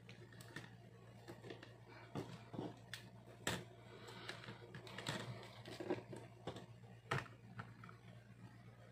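A KMC S1 single-speed bicycle chain and its clear plastic case being handled by hand: scattered light clicks, rattles and knocks, a few sharper ones, over a faint steady hum.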